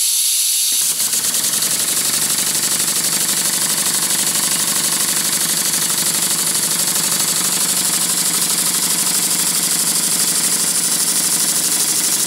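Stuart Progress model steam engine running on compressed air and driving a belt-coupled dynamo: an air hiss, then about a second in the engine picks up a rapid, even exhaust beat that holds steady.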